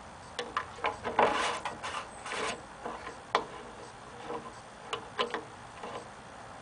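Irregular light clicks, taps and scrapes of parts being handled at the mower's engine during an oil check: a busy cluster about a second in, a sharp click a little after three seconds, and a few more clicks around five seconds.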